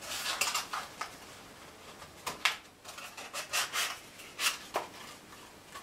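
Cardstock rubbing and scraping as a small paper tray and its sleeve are handled and fitted together, in a series of short, irregular swishes.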